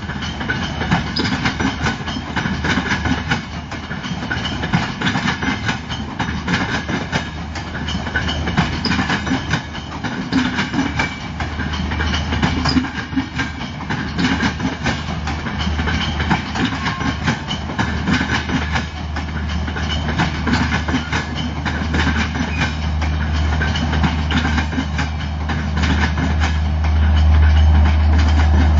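AC Duronto Express passenger coaches rolling past, their wheels clattering rhythmically over rail joints. Near the end, the steady low hum of the diesel generator in the rear luggage-brake-and-generator car grows loud as it comes by.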